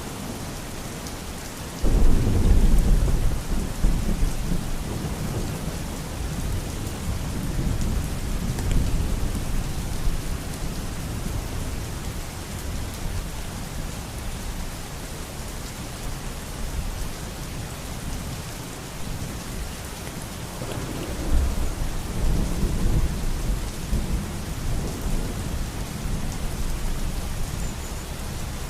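Steady rain with thunder: a heavy rumble breaks in suddenly about two seconds in and rolls on for several seconds, and a second rumble comes about twenty seconds in.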